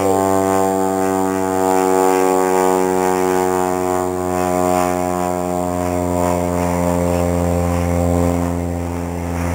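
A steady, low motor or engine hum at one unchanging pitch.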